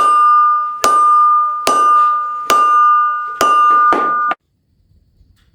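Hammer blows on a steel anvil, six strikes a little under a second apart, each setting the anvil ringing with a clear high tone. The ringing stops suddenly a little over four seconds in.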